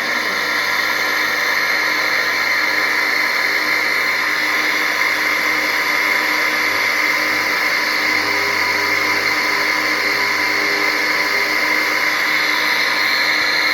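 Small electric water pump motor running steadily with a loud, even whine while drawing water from a bucket. The noise is put down to a bearing fault.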